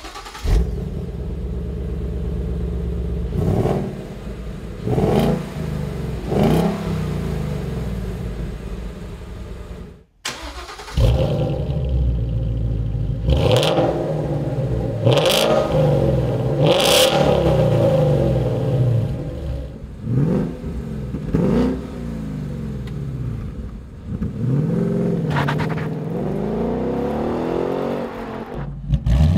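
2015 Ford Mustang GT's 5.0-litre V8 on its stock exhaust, idling and blipped three times. After a cut about ten seconds in, the same engine through a Ford Performance by Borla Touring stainless cat-back exhaust idles and is revved three more times. Over the last several seconds, the car on its stock exhaust drives off, with the engine revving up and down as it accelerates.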